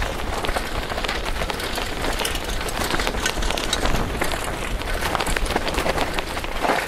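Constant rattle and clatter of a downhill mountain bike running over a rocky, gravelly trail: dense clicks and crackles of tyres on stones and the bike shaking, over a steady low rumble, heard through a camera mounted on the bike.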